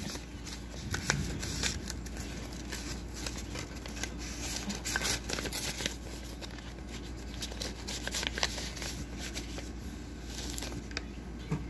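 Paper rustling as a card and its envelope are handled and folded, with scattered small crinkles and clicks over a steady low hum.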